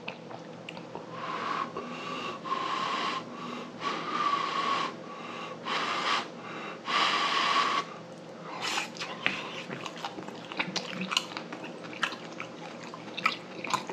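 A man breathing noisily while eating, with about five whistling breaths in the first eight seconds, then chewing with small mouth clicks.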